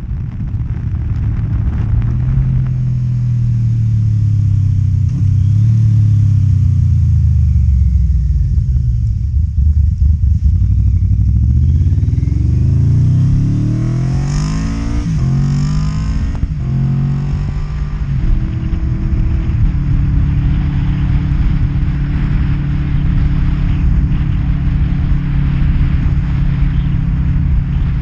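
1992 Yamaha Vmax 1200's V4 engine through Delkevic slip-on exhausts, heard from the rider's seat: the engine note falls as the bike slows, then rises in several quick pulls broken by upshifts, and settles into a steady cruise.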